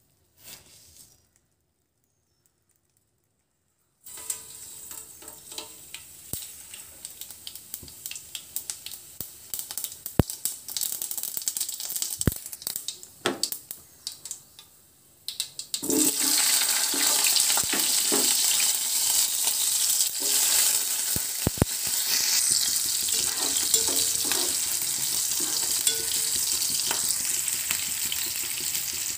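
Hot oil in a steel pot: from about four seconds in, tempering seeds crackle and pop in the oil over a light sizzle. About sixteen seconds in, a much louder steady sizzle starts as sliced onions go into the oil and fry.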